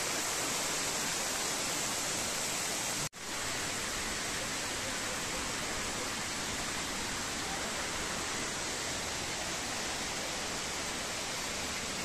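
Steady rush of falling water from Girlevik Waterfall, many thin strands pouring down a rock cliff at a low late-summer flow. It breaks off for an instant about three seconds in, then carries on unchanged.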